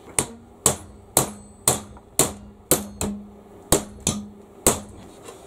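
Hammer blows on a metal bar to bend it: about ten sharp strikes, roughly two a second, with a faint ring between blows.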